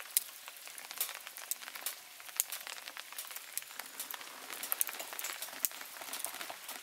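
Rain falling, with many irregular sharp drops tapping on a nearby surface.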